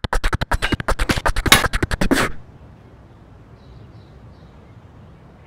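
Background music with a fast, choppy beat that stops abruptly about two seconds in. After it, a faint outdoor background with a few short, high bird chirps.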